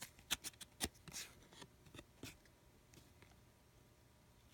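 Basketball trading cards handled and flipped through: a quick run of light clicks and taps in the first second, with a few fainter ones over the next second or so.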